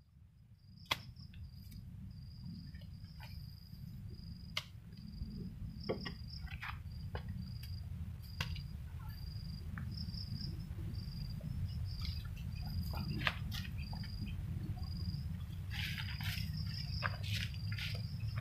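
An insect chirping steadily in a high, broken trill over a continuous low rumble, with scattered sharp clicks and knocks that grow busier with scraping near the end as the soil is dug.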